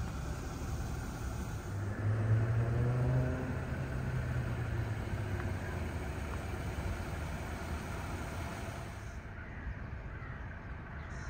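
A car driving by in a parking lot. Its engine note rises, loudest about two to three seconds in, and fades by about five seconds, over a steady low rumble of outdoor traffic.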